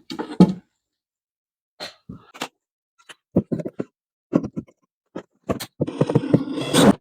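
Hand work on a wall opening for an electrical outlet box: scattered short knocks, clicks and scrapes from tools and the box being handled, then a busier stretch of rattling and scraping near the end.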